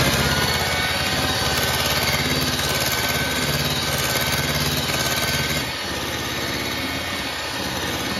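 Philips electric hand mixer running steadily at high speed, its beaters whipping egg whites and sugar in a glass bowl toward a stiff, thick meringue. It eases slightly in level about two-thirds of the way through.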